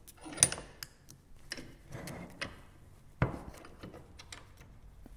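A strip of steel bandsaw blade being clamped in a bench-mounted metal vise: a sharp metallic click with a brief high ring about half a second in, then scattered knocks and light rubbing clicks as the jaws are tightened.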